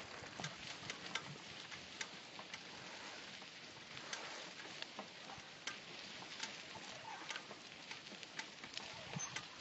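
Footsteps on a dry dirt track: irregular crunches and crackles of dry grass and grit underfoot over a faint steady hiss.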